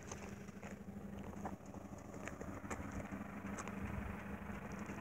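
Steady low hum, like an idling engine, with scattered faint clicks and ticks over it.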